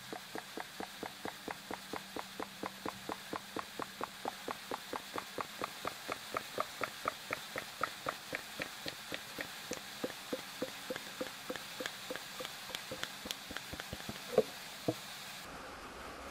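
Thick SAE 90 gear oil glugging out of a plastic jug into a funnel: a steady run of gulps about four a second that slow a little as the pour goes on. Two sharper knocks come near the end, then the glugging stops.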